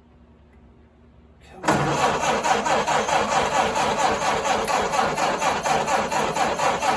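Starter cranking the 1929 Ford Model A's four-cylinder flathead engine. It begins suddenly about a second and a half in and turns over steadily in an even rhythm without settling into a run. The owner takes the failure to start for the engine being out of gas.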